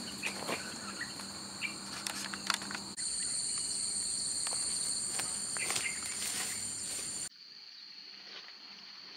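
Insects droning steadily in high, constant tones, with scattered light rustles and knocks. The sound drops sharply about seven seconds in and fades out near the end.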